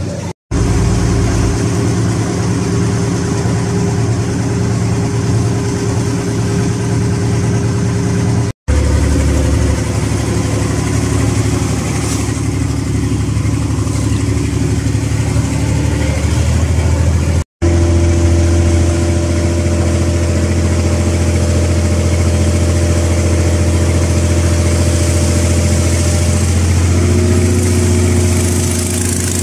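Boat engine running steadily while the boat is under way, heard from on board. It cuts out briefly three times and comes back each time at a slightly different pitch.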